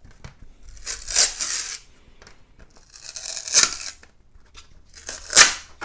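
Flexible spring-steel textured build plate of a 3D printer being bent by hand, with three crackling tears as the printed parts peel loose from its textured surface.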